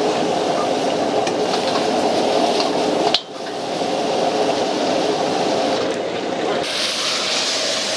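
Food frying and sizzling as it is stirred, a steady hiss, broken by an abrupt cut about three seconds in and a change in sound a little before the end.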